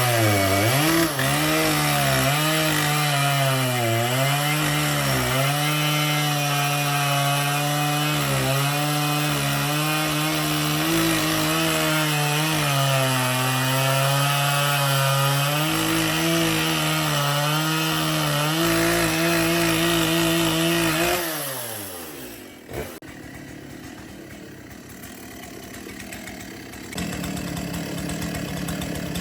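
Wood-Mizer sawmill's engine running as its band blade cuts through a log, the pitch dipping and recovering under the load of the cut. About 21 seconds in the engine winds down, falling in pitch, leaving a much quieter background.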